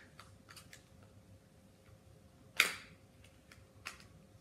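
Small plastic slime containers being handled on a tabletop: a few scattered light clicks and taps, the loudest a little past halfway.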